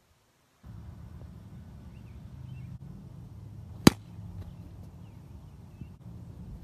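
A softball bat hitting a pitched softball once, a single sharp crack about four seconds in, over a low steady background rumble.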